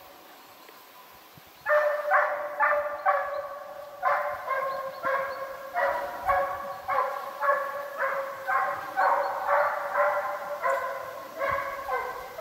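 Russian hound baying in a steady run of calls, about two a second, starting roughly two seconds in: the hound giving voice while running a hare's trail.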